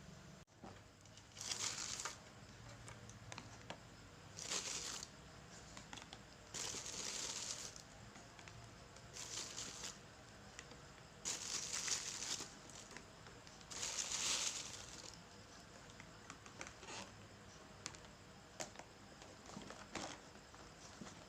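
A series of six short rustling, scrubbing strokes about every two to three seconds, with light clicks and taps between them. These are handling noises from fridge cleaning.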